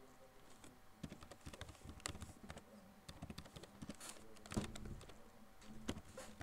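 Typing on a computer keyboard: a faint run of irregular key clicks, starting about a second in.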